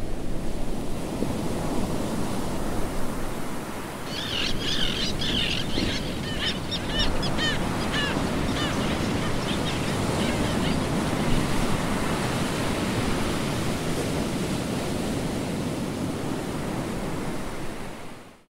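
Sea surf washing onto a beach in a steady rush, with a quick run of high chirping calls from about four seconds in until about eleven seconds. The sound cuts off suddenly near the end.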